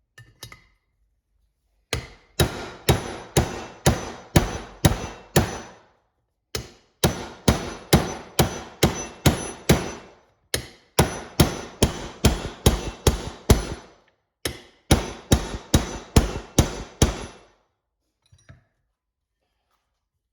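Hammer blows on a bushing driver, driving a new bushing into a 4R75W automatic transmission part. There are about two strikes a second in four runs of seven or eight blows with short pauses between them, and each strike has a faint metallic ring.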